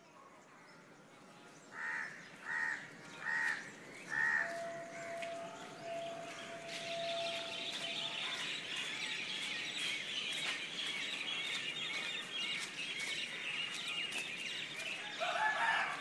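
Birds calling at dusk: four short calls in quick succession a couple of seconds in, then a dense chorus of small birds chirping from about seven seconds on. A steady held tone runs for a few seconds in between, and a louder call comes near the end.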